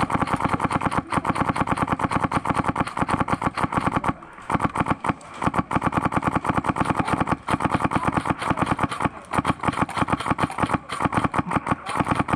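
Airsoft gun firing on full auto in long strings, about a dozen shots a second, with a few short breaks.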